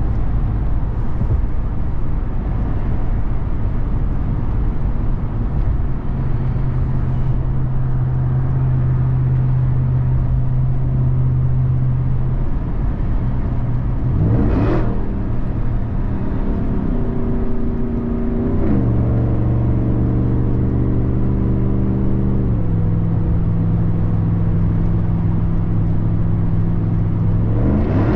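Ram 1500 TRX's supercharged 6.2-litre Hemi V8 running under way at a steady pitch, with road noise. About halfway through the engine note briefly rises as the truck accelerates. It shifts pitch twice over the next few seconds, then rises again at the end.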